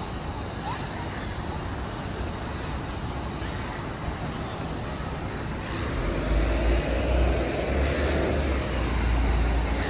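City street traffic noise. About six seconds in, a louder low rumble builds as a heavy vehicle goes by close.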